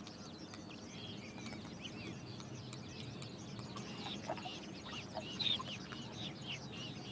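A flock of birds calling: many short, overlapping calls and chirps, getting busier and louder toward the end.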